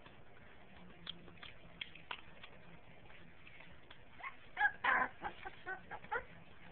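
Five-week-old pit bull puppies yipping and squealing in play, a quick cluster of short high-pitched yelps starting about four seconds in.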